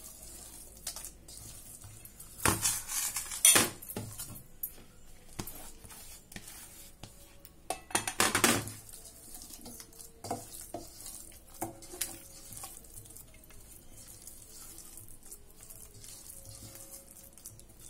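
Stainless steel mixing bowl and a plastic plate clattering and scraping on a kitchen counter while soft dough is worked by hand, with louder bursts about two and a half seconds in and about eight seconds in.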